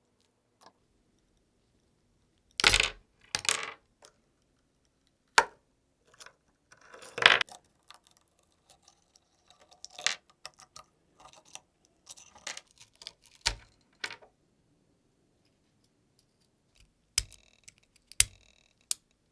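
Irregular metallic clinks, taps and short scrapes of small metal objects being handled, with quiet gaps between them. The longest scrapes come about three and seven seconds in.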